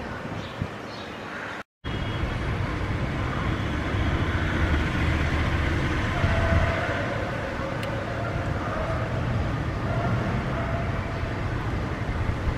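Steady low background rumble with a faint hum in it, like traffic or machinery heard from a distance, with no single clear source. It drops out completely for a moment about two seconds in.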